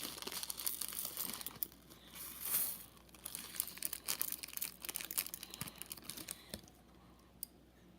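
Rapid small clicks and plastic crinkling from pink plastic fishbowl beads and their bag being handled as the beads go into the slime, dying away near the end.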